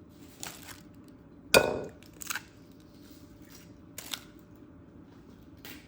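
Kitchen clatter: one sharp knock with a short ring about a second and a half in, then a few lighter clicks and taps as dishes and ingredients are handled.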